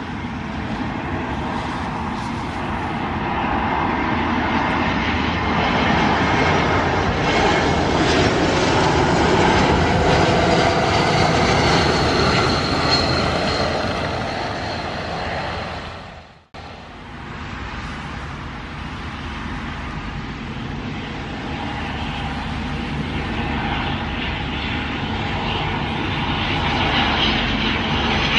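Airbus A220-300 airliner on final approach passing low, its turbofan engines swelling to a peak with a high whine about 13 seconds in, then fading. After a sudden cut about 16 seconds in, a De Havilland Canada Dash 8-300 turboprop on approach, its engines and propellers growing louder toward the end.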